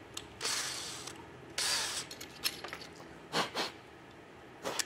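Cordless drill and hole saw being handled just after cutting a hole: two short hissing rushes, about half a second and a second and a half in, then a few sharp clicks and knocks.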